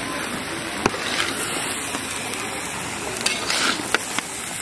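Mixed vegetables sizzling steadily in hot oil in a large metal kadai, with a few sharp clicks of the lid and ladle against the pan.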